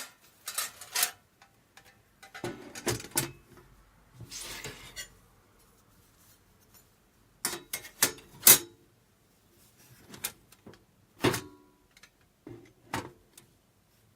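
Metal parts of a take-apart fire pit knocking and clinking as they are handled and fitted together or taken apart: a dozen or so irregular sharp knocks, some with a brief ring, the loudest about eight and a half seconds in, and a scraping slide about four seconds in.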